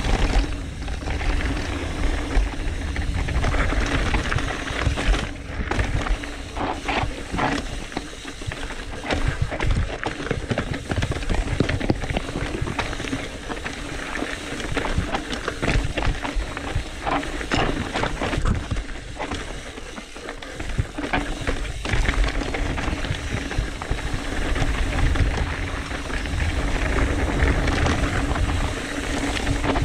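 2018 Trek Fuel EX 7 full-suspension mountain bike descending a rocky, technical trail: rattling and clattering over rocks with many sharp knocks. Wind rumbles on the microphone throughout.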